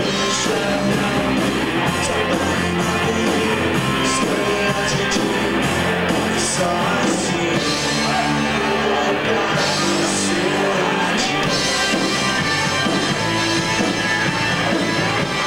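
Live rock band playing loudly, with a singer, heard from among the crowd.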